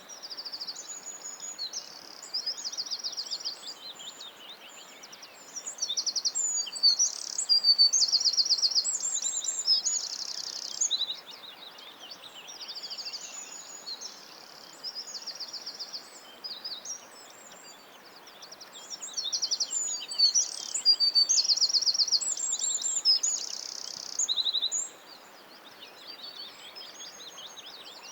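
Several songbirds singing: high-pitched chirps and fast trills, louder in two spells, over a steady soft hiss.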